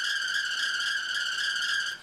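A car engine bay giving off a steady high-pitched squeal, one pitch with its overtones. It cuts off right at the end. This is the noise heard on starting the engine, and also when the AC compressor engages.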